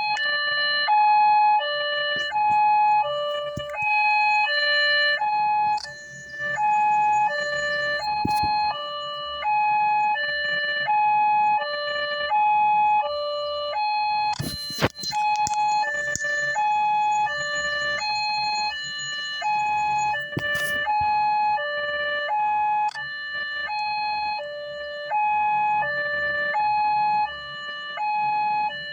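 Small electronic two-tone siren wailing hi-lo, alternating evenly between a higher and a lower note about every half second, with a few brief clicks.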